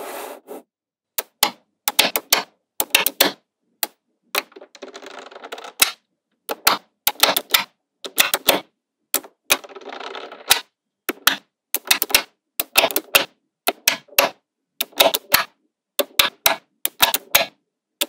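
Small magnetic balls snapping together and onto one another in quick irregular clusters of sharp clicks, with two longer stretches of dense rattling as the balls are handled.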